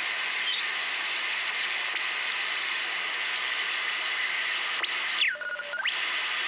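Shortwave band hiss from a National HRO-60 receiver's speaker, demodulated in sideband mode by an ESP PD3S product detector, as the tuning dial is turned. About five seconds in, a signal is tuned across: a whistle that drops steeply in pitch, holds briefly and rises again.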